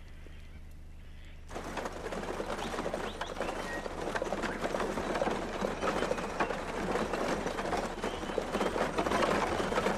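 Horse-drawn wagon on the move: a heavy draught horse's hooves and the wagon's wheels and harness clattering. The sound cuts in suddenly about one and a half seconds in and grows louder toward the end.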